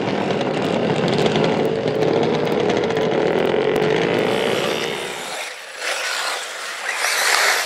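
Small two-stroke nitro RC engine revving, its pitch slowly climbing. About five seconds in the sound cuts to a thinner, more distant engine note that swells near the end.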